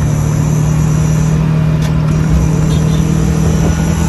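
Auto-rickshaw's small engine running steadily as it drives along the road, heard from inside the open-sided passenger cabin with a steady low hum over road rumble.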